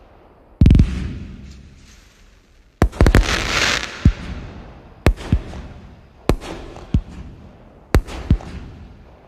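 Fireworks going off: a deep boom about half a second in, then a string of sharp bangs about once a second from roughly three seconds on, often in quick pairs. A second of crackling hiss follows the first bangs.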